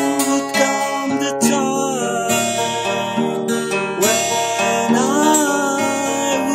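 Acoustic guitar playing chords and notes, an instrumental passage between sung lines.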